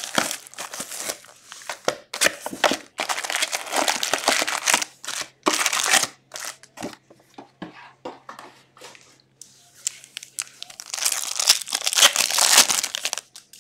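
Plastic wrap crinkling and tearing as a sealed box of hockey cards is unwrapped and its packs pulled out, then a foil card pack torn open near the end, the loudest burst of crinkling.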